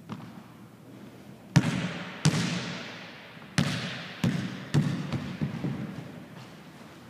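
A basketball banging hard and bouncing on a hardwood gym floor. Two loud hits are followed by a run of bounces that come quicker and softer as the ball settles, each one ringing out in the echo of a large, empty gym.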